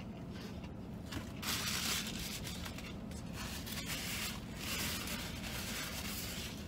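Paper napkin rustling and rubbing in two bursts, about a second and a half in and again near the end, as a mouth is wiped while chewing a bite of a chicken sandwich, over a steady low hum.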